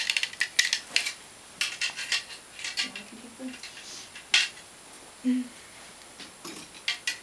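Irregular clicks, taps and short rustles of small household objects being handled and put away, with louder knocks about a second and a half and four and a half seconds in.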